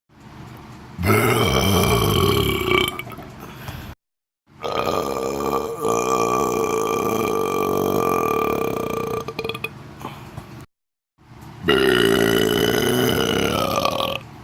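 Long, drawn-out belches on command, three in a row, separated by brief moments of dead silence: a shorter one, then one lasting about six seconds, then another starting near the end.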